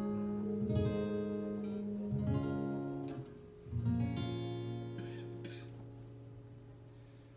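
Slow, quiet instrumental passage from a small ensemble: chords ring out over held low notes, then die away toward the end.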